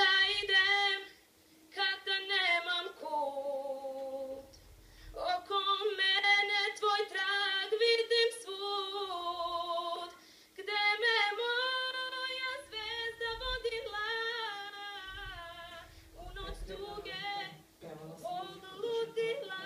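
A woman singing solo with no accompaniment, in long held notes broken by short pauses for breath, played through a television's speaker.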